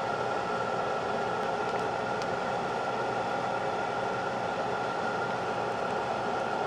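Small electric blower running steadily, a constant whirring hum over rushing air, as it forces air into the glowing embers of a burning stump.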